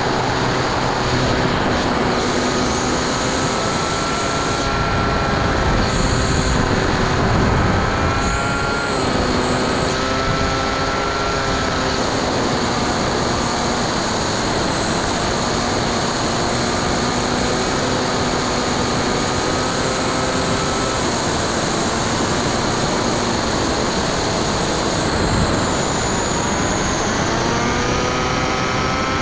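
Electric brushless motor (NTM 35-30A, 1400 kV) spinning a 9x6 pusher propeller on a Bixler 2 RC plane in flight, heard from the onboard camera's microphone. A whine that rises and falls in pitch as the throttle changes, over a steady rush of wind.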